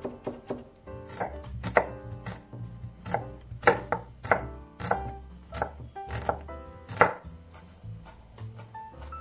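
A chef's knife chopping on a wooden cutting board, mincing garlic, then chopping onion and parsley. A quick run of light chops at first, then slower, louder single chops, growing fainter near the end.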